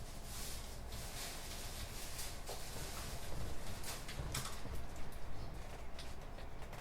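Quiet internet café ambience: a low steady hum under scattered, irregular soft clicks and rustles of keyboard and mouse use.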